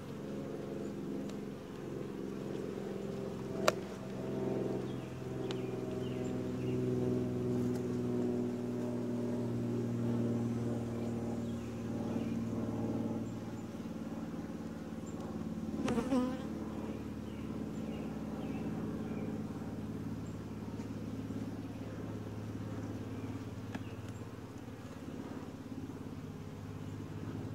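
Honey bees buzzing in a steady hum over an open hive as frames are lifted out, with a sharp click about four seconds in and a brief knock around the middle. The colony is calm.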